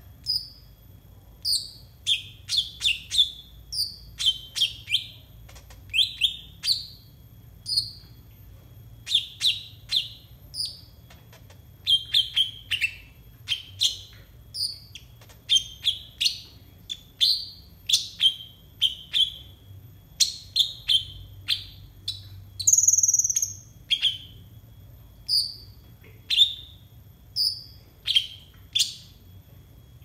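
Caged copper-throated sunbird (kolibri ninja) calling in a long series of short, sharp chirps, about one or two a second. About two-thirds of the way through comes one longer, higher, buzzier note.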